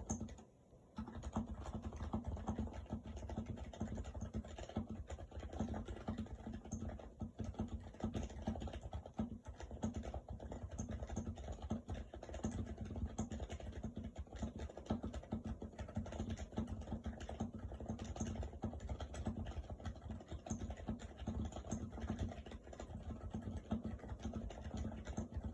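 Typing on a stock HHKB Hybrid Type-S keyboard, whose silenced Topre electrostatic capacitive switches give a fast, continuous stream of keystrokes. There is a brief pause about a second in.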